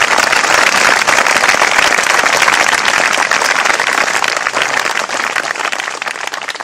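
Audience applauding, a dense patter of many hands clapping that fades out over the last couple of seconds.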